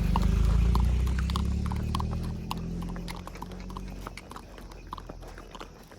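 A horse's hooves clopping in irregular steps, over a low rumble that is loudest at first and fades away over the first few seconds.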